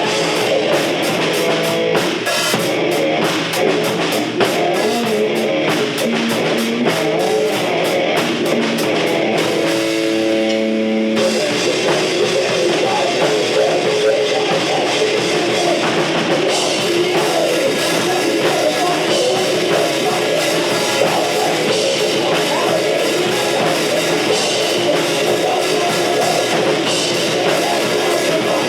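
Rock band playing loud, with a drum kit beating fast, dense hits under guitar. About ten seconds in, the drums drop out for a held guitar chord of about a second and a half, then the full band comes back in.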